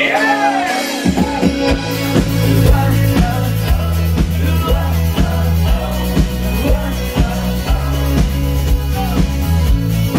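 Live pop-rock band playing: bass and drums come in about a second in and carry a steady beat, with guitar and a sung melody over it.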